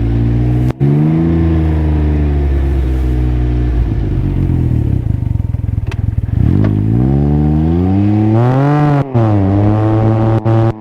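Can-Am Ryker Rally's three-cylinder engine through an aftermarket Treal Performance exhaust, revving hard under acceleration. The revs climb and fall several times, with a choppy, crackling patch about five seconds in.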